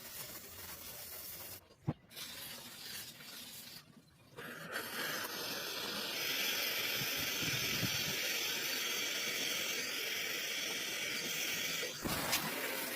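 A steady hissing spray starts about five seconds in and runs on, with a short break near the end; a sharp click comes about two seconds in.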